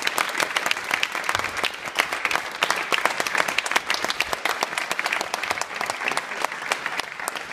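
Audience applauding, a dense spatter of many hands clapping at once, held steady.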